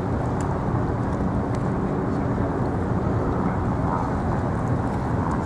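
Steady low outdoor rumble with a faint engine hum running under it.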